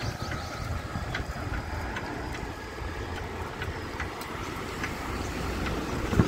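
Steady rumble of a moving vehicle, road and engine noise heard from on board, with a sharp knock near the end.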